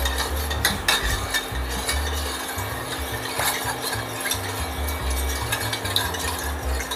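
Metal spoon stirring salted water in a stainless steel pot, dissolving the salt: uneven sloshing of the water, with the spoon clinking against the pot a few times.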